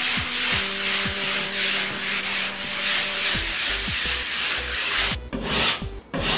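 Sandpaper held by hand rasping over a scraped plaster ceiling in quick back-and-forth strokes, about two or three a second, smoothing the gritty surface before painting. The strokes slow into separate swipes near the end.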